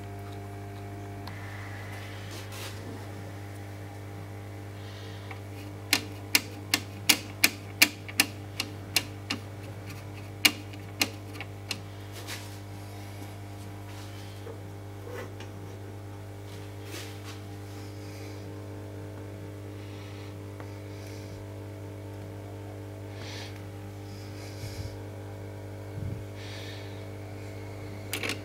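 Steady electrical hum with a quick run of about a dozen sharp clicks, roughly two a second, a few seconds in, and a few more clicks near the end.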